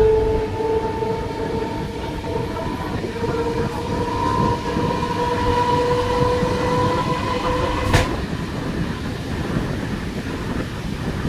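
Electric local train's motor coach traction motors whining as the train accelerates, the whine rising slowly in pitch, over the rumble of wheels on the track. About eight seconds in the whine cuts off suddenly with a click, as power is shut off, and the coach rolls on.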